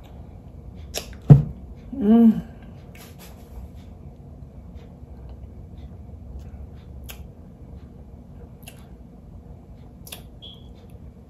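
Mukbang eating sounds of a person eating trifle with a spoon: a sharp knock about a second in, a short hummed "mmm" just after, then scattered faint mouth and spoon clicks.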